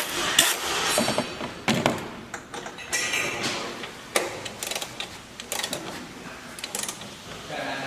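Metallic clinks, taps and knocks of tools and fasteners as bolts on a truck's front suspension are run down by hand, with the loudest knocks near the start and a few seconds in.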